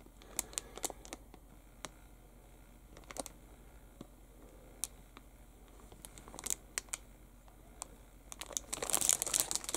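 Clear plastic bag around a plastic model-kit sprue crinkling as it is handled and turned, with scattered small clicks, and a denser, louder crinkling near the end.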